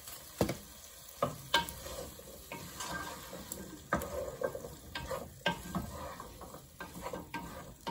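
Wooden spatula stirring strips of watermelon rind in a stainless steel pot, with irregular knocks and scrapes against the pot over a soft sizzle as the rind sautés.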